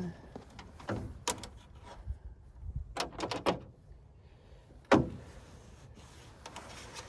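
Hand tools and small wiring parts being handled: scattered sharp clicks and knocks, with a quick run of clicks about three seconds in and one loud knock near five seconds.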